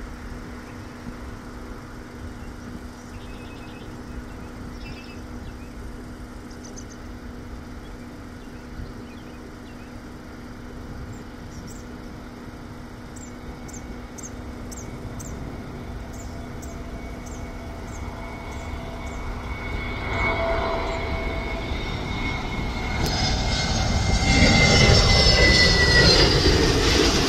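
Airbus A321neo jet on final approach: a steady distant engine rumble that grows much louder over the last several seconds as the airliner comes close, with a whine that falls in pitch near the end as it passes.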